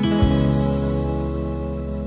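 Background music on guitar: a final chord struck just after the start rings out and slowly fades.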